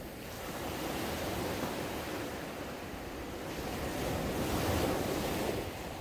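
Gentle surf: small waves breaking and washing up a sandy beach, in two swells, the louder one about five seconds in.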